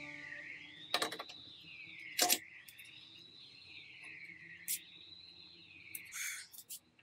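A few light metal clicks and taps as a rusty, dismantled adjustable wrench is handled and probed, over a faint high tone that slowly wavers up and down.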